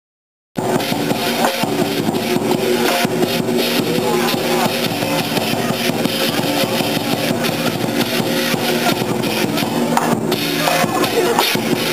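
Chinese lion dance percussion: a drum beaten hard with clashing cymbals, a dense run of strikes with ringing tones under them. It starts abruptly about half a second in, after a brief dropout.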